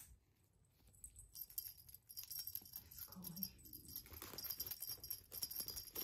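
A small bell on a kitten's collar jingling in quick, uneven shakes as the kitten scrambles and plays, starting about a second in.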